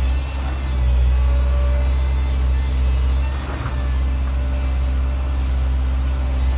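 Diesel engine of a Volvo 140 hydraulic excavator running steadily, with a brief clatter about three and a half seconds in.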